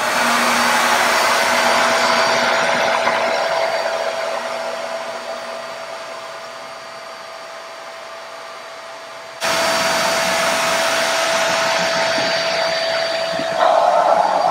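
Electric inflator air pump running, a steady rush of air with a constant hum, blowing air through a hose into a large inflatable boat fender. The sound fades slowly over several seconds, jumps back up abruptly about nine seconds in, and gets louder again near the end.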